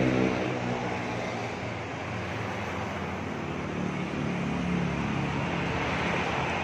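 Road traffic going by: a vehicle's engine fading as it passes at the start, then a steady traffic hum, with another engine swelling about four seconds in.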